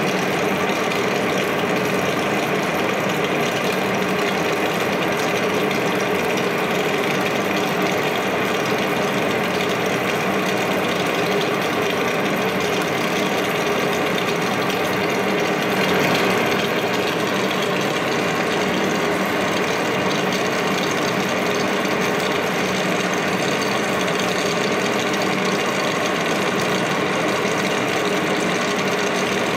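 Monarch engine lathe taking a heavy turning cut in 4140 steel with a carbide insert. The spindle and gearing run steadily under load, with short chips breaking off the tool throughout.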